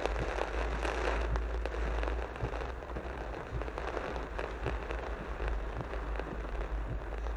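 Rain pattering densely on a car's windshield, heard from inside the cabin over a steady low rumble from the slow-moving car.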